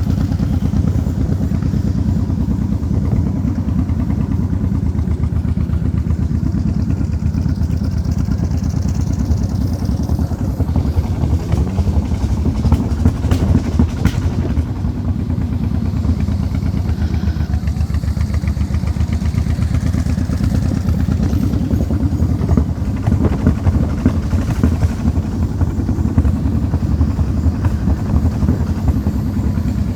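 An engine running steadily with a low rumble, its pitch briefly rising and falling about halfway through.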